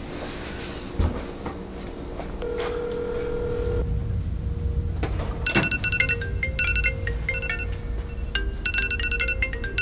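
Background music with a low drone, then from about five and a half seconds in a mobile phone ringtone playing short electronic phrases over and over.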